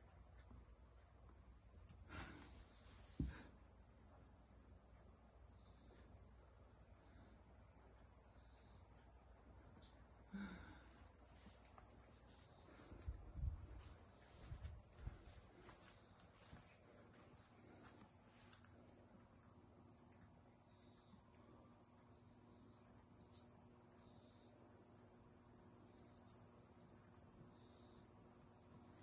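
Steady high-pitched chorus of insects, unbroken throughout. A couple of soft knocks come a few seconds in, and a low rumble underneath fades out about halfway through.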